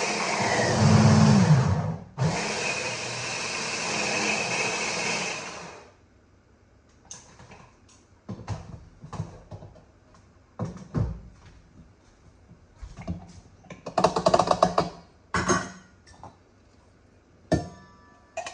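Electric blender chopping broccoli. Its motor runs with the pitch dropping briefly about a second in, stops for a moment near two seconds, runs again and cuts off at about six seconds. After that come scattered clicks and knocks of the bowl and utensils being handled, with a louder clattering stretch toward the end.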